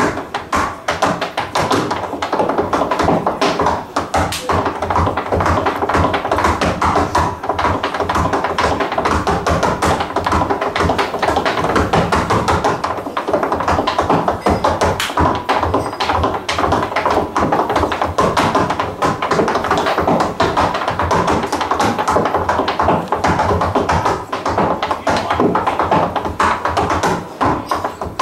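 Tap shoes striking a wooden stage floor in fast, dense tap-dance rhythms, played over music.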